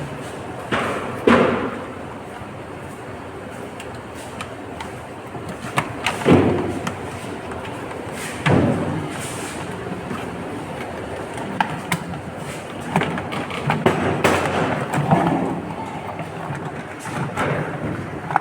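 Irregular thumps, knocks and scraping of objects being handled, with short clicks in between.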